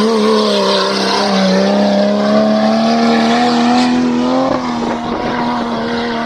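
Off-road 4x4's engine running loud at high revs, its pitch creeping slowly upward, then dipping slightly and levelling off about four and a half seconds in.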